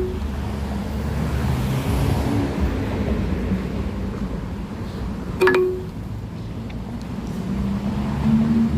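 Car on the move, heard inside the cabin: steady low road and engine rumble. A short chime-like tone sounds about five and a half seconds in.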